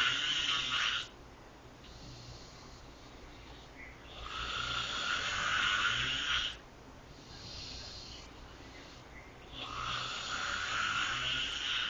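A person snoring: loud snores come about every five and a half seconds, each lasting two to three seconds, with softer breathing between them.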